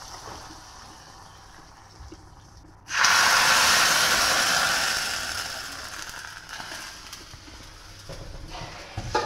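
Hot coconut-oil tempering ladle hitting buttermilk curry: a sudden loud sizzle about three seconds in that fades away over the next few seconds, after a fainter dying sizzle. A short knock near the end.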